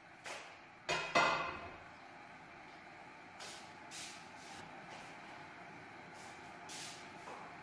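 Handling noises: two sharp clinks about a second in, the second the loudest and ringing briefly like struck kitchenware, then several soft brushing sounds over a steady low background.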